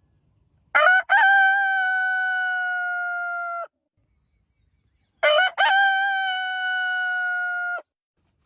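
Rooster crowing twice, about four seconds apart. Each crow is a short broken opening followed by a long held note that sags slightly in pitch and cuts off sharply.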